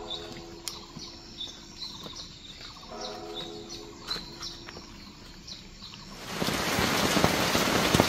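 Birds chirping at dawn, with two long, held pitched calls about three seconds apart. About six seconds in, heavy rain starts drumming on a camping tarp and dripping off its edge, loud and steady.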